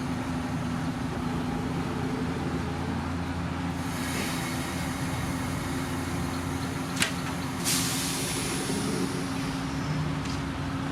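Heavy diesel earthmoving machinery running steadily. Partway through, a hiss rises, and about seven seconds in a sharp click is followed by a burst of air hiss that fades out.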